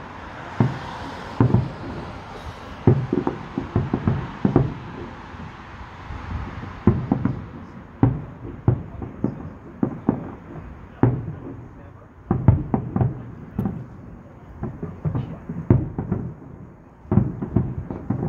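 Distant aerial fireworks going off: an irregular string of bangs and booms, several a second, with a hiss during the first few seconds.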